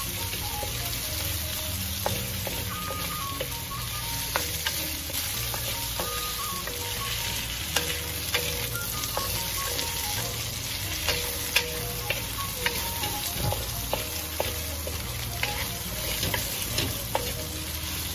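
Turmeric-coated chicken breast pieces sizzling as they fry in a stainless steel pan, stirred with a wooden spatula that knocks and scrapes against the pan with sharp taps scattered throughout.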